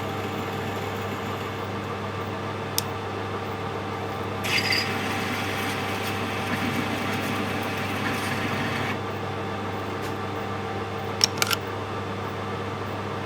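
Metal lathe running steadily with a tool cutting stainless steel, a harsh scraping from about 4.5 to 9 s. The stainless cuts poorly until lubricant is applied. A few sharp metallic clicks come near the end.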